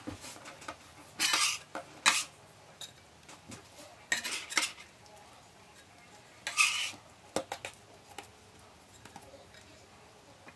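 Stainless-steel bench scraper scraping across a countertop in several short strokes, with light clicks and taps in between, as it lifts sourdough dough off the counter.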